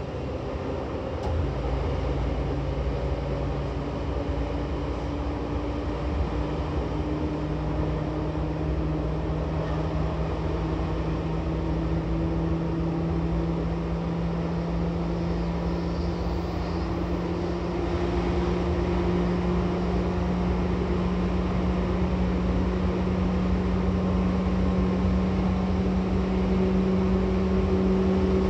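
Seibu 2000 series electric train heard from inside the car above the line breaker, accelerating. Power comes on with a jump in level about a second in, then the traction motor and gear hum rises slowly in pitch as the train gathers speed.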